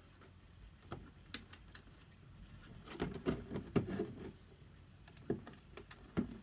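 Quiet, scattered clicks and rustles of plastic being handled: a nylon cable tie being threaded through a roof rack and an RC car's plastic body shell. The clicks are busiest about three to four seconds in, with a few more near the end.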